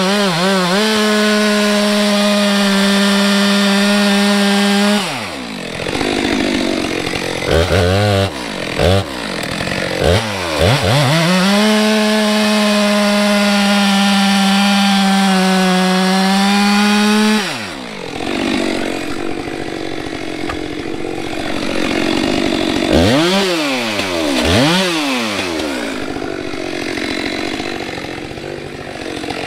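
Stihl MS462 C-M two-stroke chainsaw cutting through logs at full throttle: two long steady cuts, the first about five seconds, the second about six seconds, with quick throttle blips between them. After the second cut it drops to a lower, uneven running with two more blips near the end.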